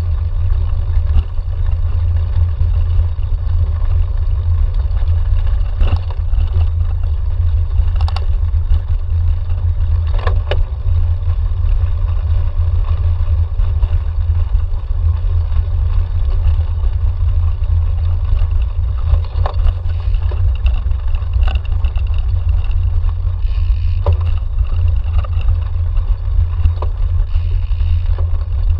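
Cyclocross bike riding over bumpy grass, heard from a handlebar-mounted camera: a loud, steady low rumble of wind and frame vibration, with a few short knocks and rattles from the bike over bumps.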